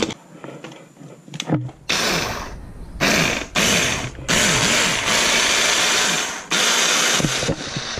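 Lenoxx electric hand blender with its chopper bowl, grinding cocoa powder, milk powder and peanut butter into a thick paste. It starts with a few handling clicks, then runs in several short pulses and one longer run of about two seconds, its motor pitch wavering, before it stops near the end.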